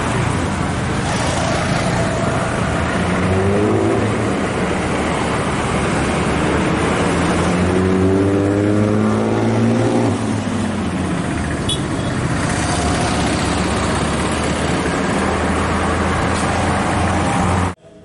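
Road traffic: steady noise of passing motor vehicles, with engine notes that rise about three seconds in and fall again between about seven and ten seconds in. It cuts off suddenly just before the end.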